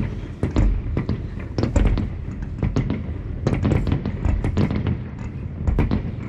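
Fireworks display heard from indoors: a fast, dense run of crackling pops with a few deeper booms among them.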